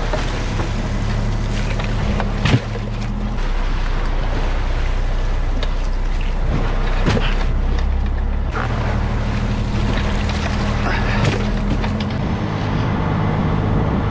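A crab-fishing boat's engine running steadily, with a few sharp knocks on deck, the loudest about two and a half seconds in.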